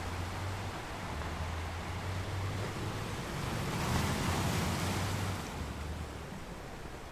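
Sea waves washing in: a steady rush of surf that swells to a peak about four seconds in, then eases off.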